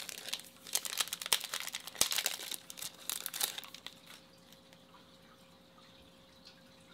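Topps Chrome baseball card pack wrapper being torn open and crinkled by hand: a burst of crackling and rustling that dies away about four seconds in.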